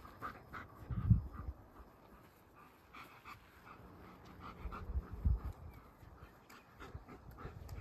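German shepherd panting in short repeated breaths, with two brief low rumbles, the louder about a second in and another near five seconds.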